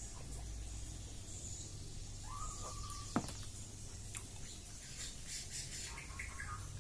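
Small eating sounds, clicks and mouth smacks, with one sharp click about three seconds in, the loudest thing heard. A bird calls briefly in the background, a short call that rises and then holds, with faint chirps near the end.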